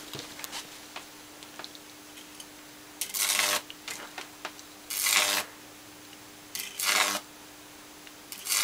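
Microwave-oven-transformer Jacob's ladder with MIG-wire electrodes: a faint steady hum, broken three times by half-second bursts of buzzing as an arc strikes between the wires.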